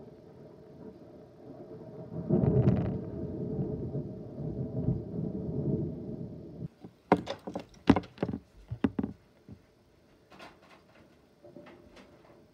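Thunder rumbling for about four seconds and fading away, followed by a quick series of sharp knocks and clicks and a few more a second later.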